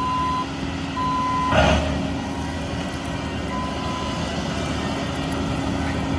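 Skid steer's diesel engine running steadily while its backup alarm beeps in short tones, with a brief loud burst of noise about a second and a half in.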